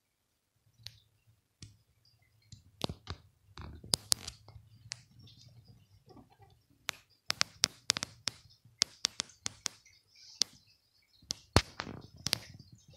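Irregular sharp clicks and taps, some in quick runs, over an intermittent low rumble: handling noise of a hand-held camera being moved. The loudest click falls a little past the middle.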